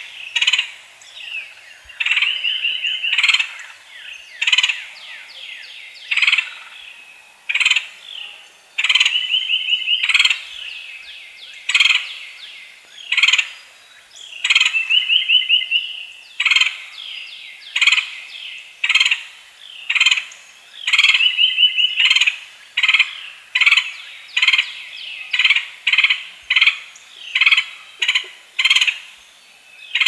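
A woodpecker calling over and over: short harsh calls about once a second, broken four times by a longer rolling, trilled call lasting a second or so.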